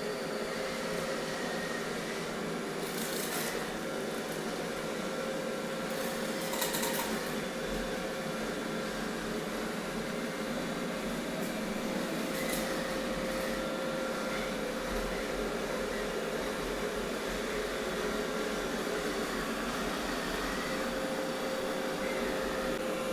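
Roborock S7 MaxV robot vacuum running, a steady whir with a constant hum, while it vacuums and mops the floor. A few brief hissing bursts come about three, six and a half and twelve seconds in.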